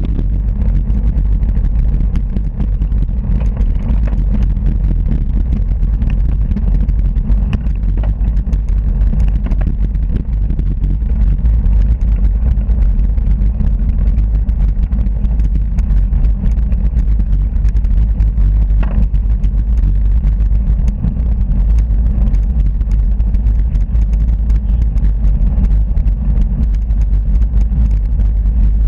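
Steady low rumble of wind buffeting the microphone of a handlebar-mounted camera on a moving bicycle, mixed with road and tyre vibration, with a few faint clicks.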